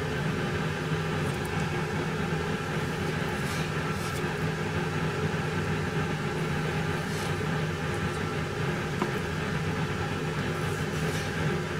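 A steady machine hum, with a few faint soft swishes of a kitchen knife drawn in single pulls through seared bonito onto a wooden cutting board.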